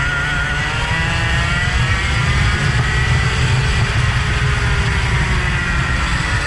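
A vehicle engine running at speed, its pitch rising and falling as it revs up and down, over a heavy low rumble.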